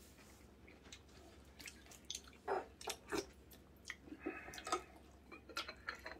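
Quiet, wet mouth sounds of someone eating hot soup: short slurps, lip smacks and chewing, as a few separate soft clicks.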